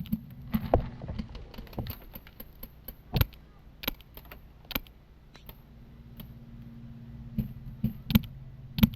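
Irregular sharp clicks and knocks, about a dozen spaced unevenly, over a steady low hum.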